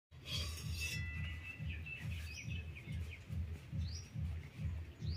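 Birds chirping and twittering, with a few short rising chirps, over a low throbbing pulse that beats about twice a second.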